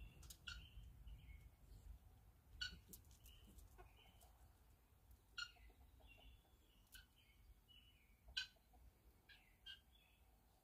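Faint, scattered bird chirps: a handful of short, high notes a second or two apart over an otherwise hushed yard with a low steady rumble.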